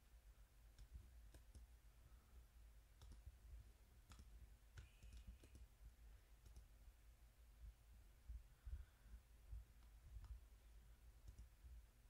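Faint computer clicks, about ten of them at irregular intervals, over a low steady background hum.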